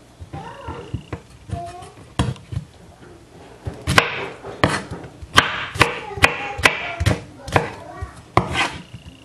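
Knife chopping pineapple on a wooden cutting board: a series of sharp chops, a few softer ones at first, then about two a second and louder from about four seconds in.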